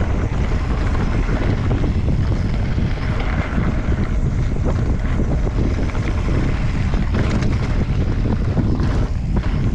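Wind buffeting the microphone over the crunch and rattle of a mountain bike riding a rough gravel singletrack.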